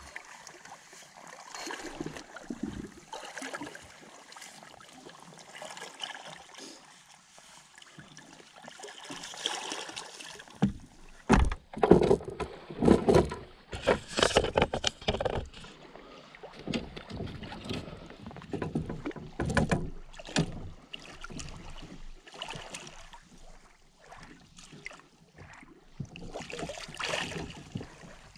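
Water splashing and sloshing around a landing net held in the lake, in irregular bursts, loudest about eleven to fifteen seconds in.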